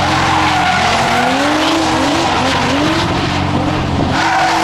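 Straight-six drift car sliding: the engine revs rise and fall in repeated pulses while the tyres skid and hiss across the surface.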